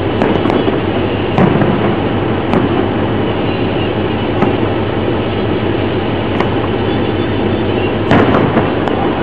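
Fireworks going off: a few scattered sharp pops, and a louder firework bang about eight seconds in, over a constant loud background rumble.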